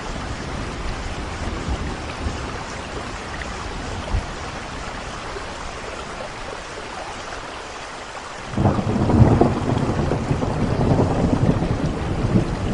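Steady rain falling, then about two-thirds of the way in a loud thunder roll breaks in suddenly and keeps rumbling over the rain.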